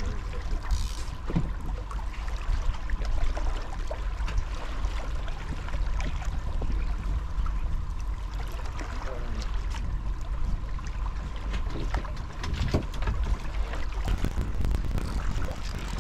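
Steady low rumble and water noise of a sea-fishing boat, with scattered small knocks and clicks and a faint steady high tone.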